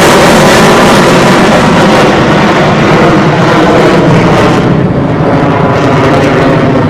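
Military jet flying low past, its engine noise very loud and dense. The high hiss falls away from about four and a half seconds in as the jet moves off.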